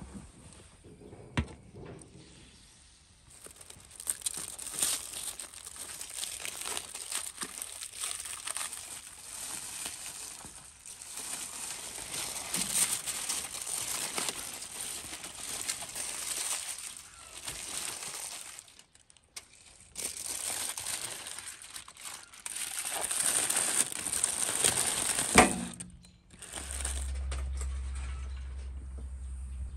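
Aluminium foil being pulled open and crumpled off roasted ducks in a baking tray, in long crackling stretches with short pauses. Near the end there is a sharp knock, then a low steady rumble.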